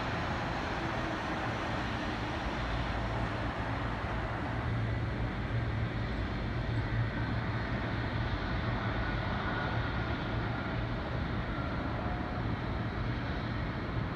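Steady airport background noise: a low rumble and hiss with a steady hum, from the distant jet engines of taxiing and landing airliners.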